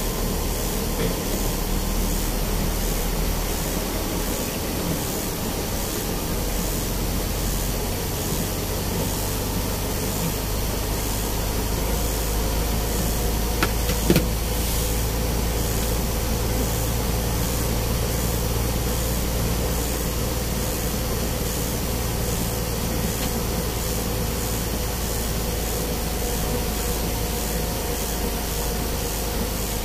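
Truck engine running as the truck drives slowly, heard from inside the cab, over a steady hiss. The low engine hum grows heavier about a quarter of the way in, and a couple of short sharp clicks come about halfway through.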